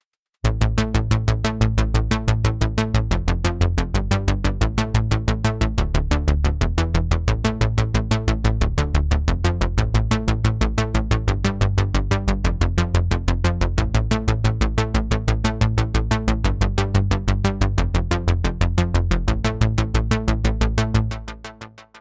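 Cherry Audio Elka-X software synthesizer, an emulation of the ELKA Synthex, playing a preset as a fast, even stream of short repeated notes over a heavy bass line that changes pitch every second or two. It starts about half a second in and dies away near the end.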